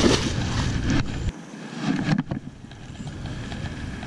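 Wind buffeting the microphone for about the first second, cutting off suddenly, over a splash as a fish hits the river water at the foot of the wall. Then quieter river ambience with a faint voice and a single click.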